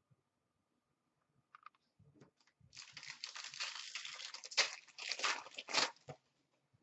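An Upper Deck Ice hockey card pack's wrapper being torn open and crinkled by hand: a few faint clicks, then about three seconds of crackling tearing with several sharper, louder rips in the second half.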